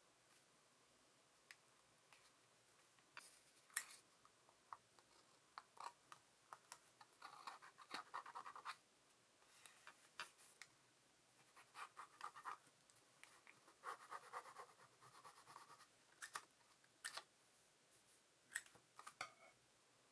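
Quiet handling of tweezers and washi tape strips on a paper journal page: scattered small clicks and taps, with short scratchy rustles as the tape is laid and pressed down. The sharpest click comes about four seconds in.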